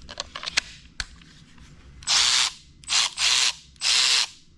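Milwaukee M12 cordless 3/8-inch drive ratchet spinning its head with no load, in four short trigger pulls of about half a second each. A few light handling clicks come before them in the first second.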